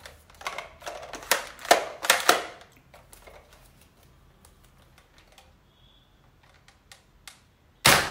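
Hard plastic clicks and rattles from handling a Nerf Elite foam-dart blaster with a revolving drum: a dense run of clicks over the first three seconds, then only a few scattered ones. One much louder, sharp noise comes just before the end.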